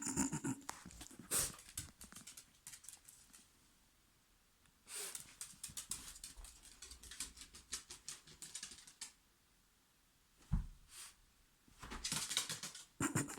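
A dog's claws clicking rapidly on the floor in 'tippy taps', the excited little dance of the paws, in three spells of quick clicking. A single low thump about two-thirds of the way through.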